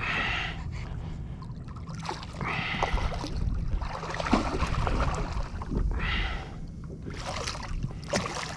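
Water splashing around a kayak in several short bursts while a hooked red drum is fought on rod and reel; the last bursts come near the end as the fish thrashes at the surface. A low wind rumble on the microphone lies underneath.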